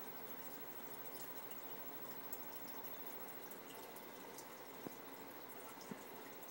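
Aquarium water bubbling and trickling steadily, with faint drip-like ticks throughout and two small taps near the end.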